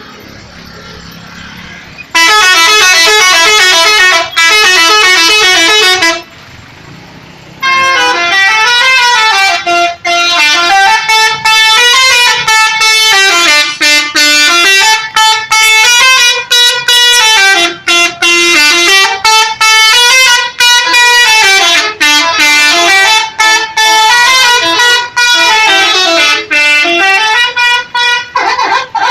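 A bus's multi-tone telolet horn blaring. About two seconds in it sounds a loud call warbling between two notes for about four seconds; after a short pause it plays a long tune of many notes stepping up and down, with brief breaks between phrases.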